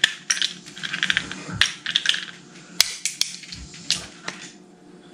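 Steamed crab shell cracking and snapping as a claw is broken open and picked apart, a scatter of sharp, crisp clicks and cracks that thin out near the end.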